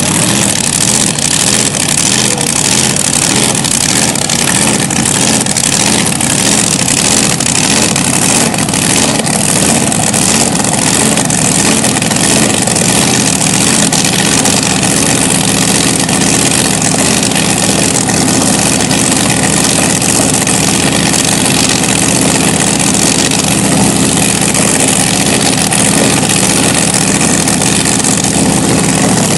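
Supercharged 484 Keith Black Hemi running on alcohol in a front-engine dragster, idling steadily and loudly.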